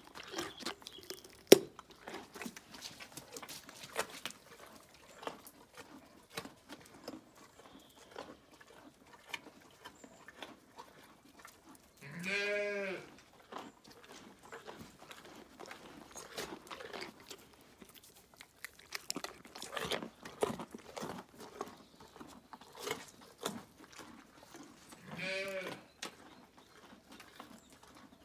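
A pony crunching and chewing carrots, with irregular crisp crunches throughout. A short bleat, about a second long, comes twice: once near the middle and once near the end.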